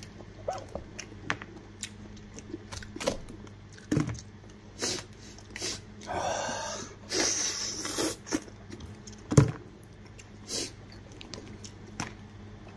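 Hands pulling meat and cartilage off a cooked sheep's head, with a scattered series of sharp cracks and clicks of bone, wet tearing and chewing sounds. A longer wet, noisy stretch comes near the middle, and the sharpest crack about nine seconds in.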